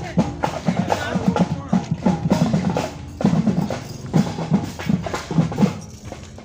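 Parade drums beaten in a quick, busy rhythm, with voices over them; the drumming stops near the end.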